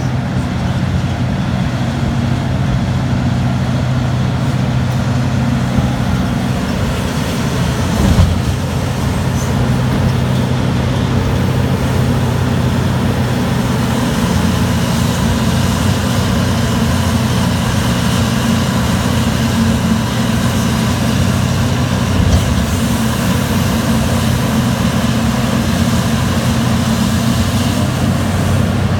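Terex RH170 hydraulic mining shovel's engine running steadily as it digs and lifts a bucket of rock, with a low steady drone. A single thud comes about eight seconds in, and a smaller one later.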